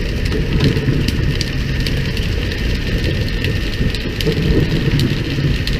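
Steady rain-like pattering of water splashing on the sea surface beside a pole-and-line tuna boat, over a low rumble, with scattered sharp clicks.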